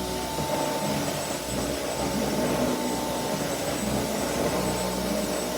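Vacuum cleaner running steadily: a constant whine over a rushing hiss, with a lower drone that wavers slightly.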